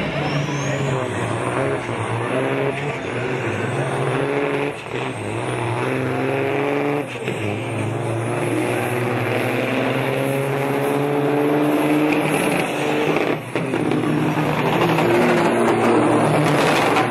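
Big-rig semi trucks' diesel engines at full throttle in a drag race, with black smoke pouring from the stacks. The pitch climbs and drops back several times as the trucks are pushed hard.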